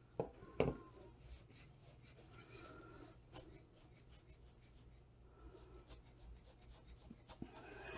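Faint handling noises: two sharp clicks in the first second, then light scraping, rubbing and small ticks as gloved hands work a handheld air tool close over the tile.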